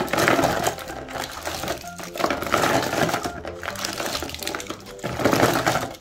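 Small plastic jelly cups clattering and rattling against each other and the plastic box as hands scoop and stir them, in three surges: near the start, about halfway, and near the end. Background music plays underneath.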